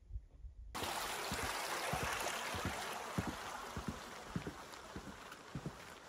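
Footsteps of a hiker walking on a trail, about one and a half steps a second. A steady rushing hiss cuts in suddenly about a second in and slowly fades.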